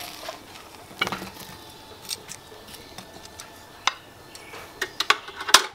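Metal tongs clinking and scraping against a flat pan and a ceramic plate as grilled chilies and garlic are moved onto the plate: a scatter of light clicks and taps, the sharpest near the end.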